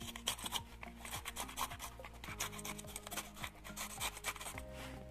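A kitchen knife cutting into a green bell pepper, giving irregular soft clicks and scrapes as the blade goes through the flesh. Quiet background music with slow chord changes plays underneath.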